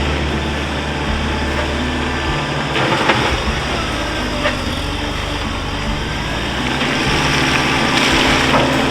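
Diesel engine of heavy equipment running, its pitch shifting a few times, with a couple of sharp knocks about three and four and a half seconds in.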